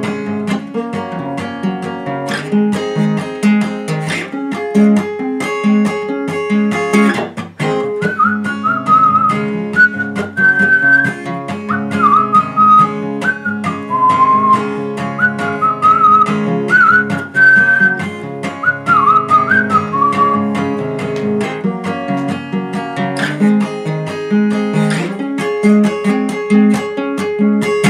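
Acoustic guitar played in an instrumental break between verses, with a whistled melody over the chords from about eight seconds in to about twenty seconds; after that the guitar plays on alone.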